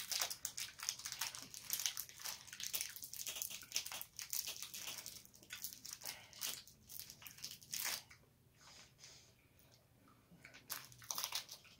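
Wrapper of a small individually wrapped candy crinkling and crackling as it is worked open by hand, stopping about eight seconds in.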